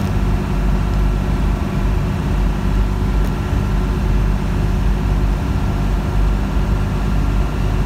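Steady drone inside a semi-truck cab at highway speed: the diesel engine's low hum under tyre and road noise on wet pavement.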